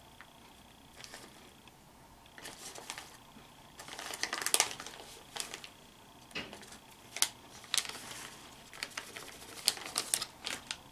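Clear plastic bag of shredded mozzarella crinkling in the hand as the cheese is shaken and pinched out onto pizzas in foil pans: irregular short rustles, loudest about four to five seconds in and again near the end.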